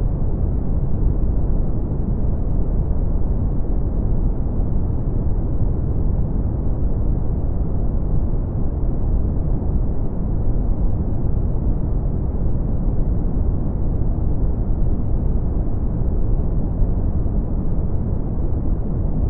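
Steady, unbroken brown noise: an even, deep rush with its weight in the bass and little in the treble.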